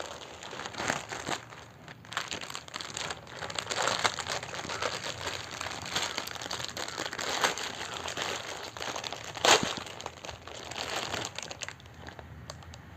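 Plastic packaging crinkling and rustling as it is handled and unwrapped, with one sharper crackle about nine and a half seconds in.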